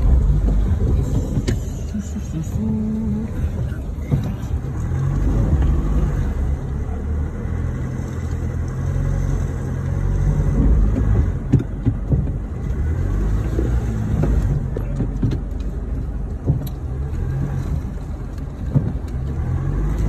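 A four-wheel-drive vehicle's engine running at low speed, heard from inside the cab, its hum swelling and easing a little as it creeps along. A few short knocks sound along the way.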